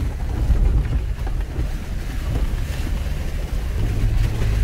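A 4x4's engine running at low trail speed, heard from inside the cab as a steady low rumble, with a faint hiss over it.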